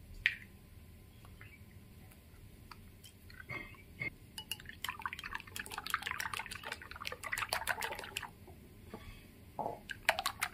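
Raw eggs dropping into a ceramic bowl, then wooden chopsticks whisking the eggs, clicking and scraping quickly against the bowl. The clicks turn fast, even and louder near the end.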